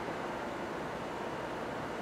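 Steady, even rushing noise with no distinct events or changes.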